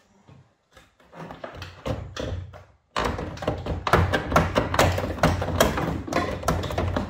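Knocking, tapping and clattering of hand work on car parts: a few scattered knocks, then about three seconds in a dense, busy run of knocks and rattles over a low hum that stops suddenly.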